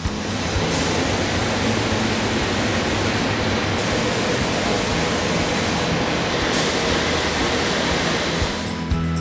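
Paint spray gun hissing steadily, with its sharpest part dropping out briefly twice, over faint background music.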